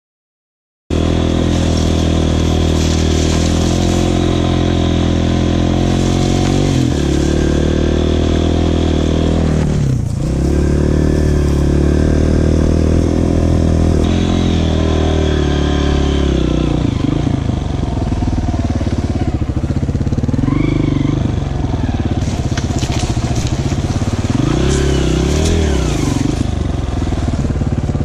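Dirt bike engine running as it is ridden through soft sand and loose stones, the revs dropping and rising again several times. It starts abruptly about a second in.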